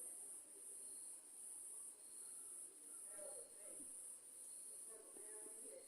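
Crickets chirping at night: a steady high trill that swells and dips a little more than once a second.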